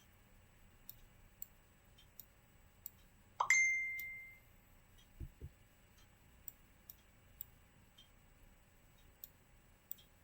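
Computer mouse clicking faintly and irregularly during PCB layout work. About three and a half seconds in comes a single sharp clink that rings at one pitch for about a second. It is the loudest sound, and two soft low thumps follow a couple of seconds later.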